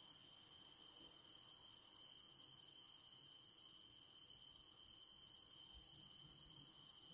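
Faint crickets singing: a steady high note, with a higher trill in long runs broken by short pauses about every second and a half.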